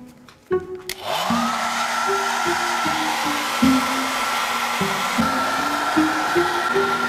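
Handheld electric hot-air blower switched on about a second in. Its motor whine rises briefly as it spins up, then holds steady over a loud rush of air blowing into the radiator fins.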